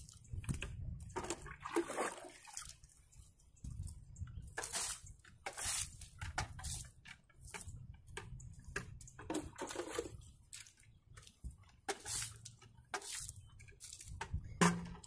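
Water sloshing in a plastic bucket and bare feet squelching through wet clay mud, in irregular short wet splashes about once a second, over a low steady rumble.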